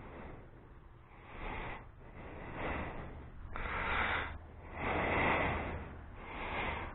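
A person breathing close to the microphone, each breath a hazy swell that rises and fades about once a second.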